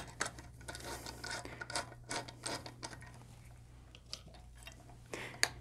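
Faint scratching and small light clicks of a nylon locking nut being threaded by hand onto the propeller shaft of a Torqeedo Travel electric outboard, with a few sharper clicks near the end.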